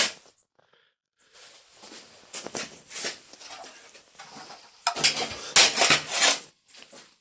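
Pieces of cut metal plate being handled, scraping and clattering against each other, loudest about five to six seconds in.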